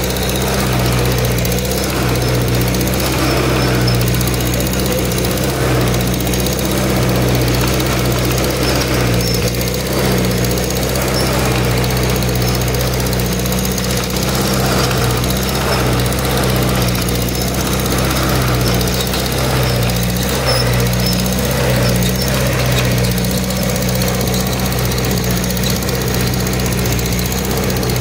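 Tractor engine running steadily under load, pulling a plow through the soil, heard from the driver's seat as an even low drone.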